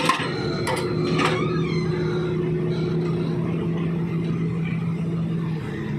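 Wheeled Volvo excavator's diesel engine running steadily, its hydraulic breaker just fallen silent at the very start; two short knocks about a second in.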